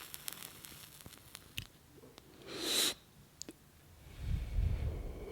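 Lighter and smoking sounds: a run of small clicks, a short sharp hiss about two and a half seconds in as the lighter is struck, a few more clicks, then a low breathy rush of smoke being drawn in from about four seconds in.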